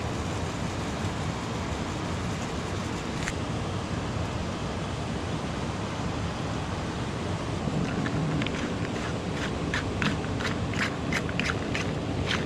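Steady rushing background noise, and from about eight seconds in a run of quick light clicks and scrapes: a fork tossing salad on a paper plate.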